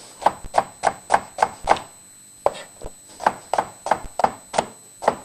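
Knife chopping garlic cloves on a cutting board: quick, sharp strikes about three a second, with a brief pause about two seconds in.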